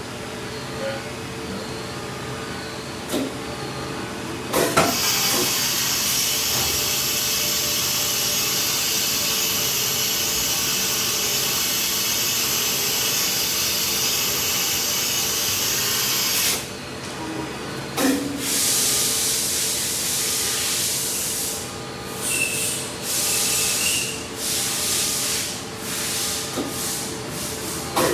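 Fadal VMC 6030 CNC vertical machining center running with a steady hum. A knock about five seconds in starts a long, even hiss that cuts off suddenly about halfway through. It is followed by a series of shorter hisses, stopping and starting, toward the end.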